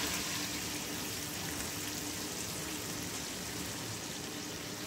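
Water poured into a pan of sizzling, dry-fried chicken curry masala, turning it into gravy, followed by a steady hiss as the curry cooks in the pan.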